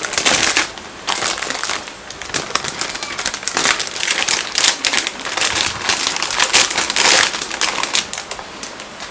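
Plastic anti-static bag crinkling and rustling as a part is pulled out of it, a rapid run of crackles that thins out near the end.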